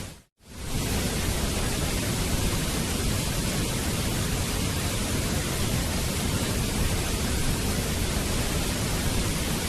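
Waterfall water rushing in a steady, even roar of noise. It fades out to silence for a moment just after the start and comes straight back.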